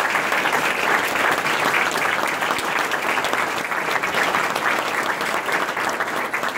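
Audience applauding: dense, steady clapping from a roomful of people, thinning slightly near the end.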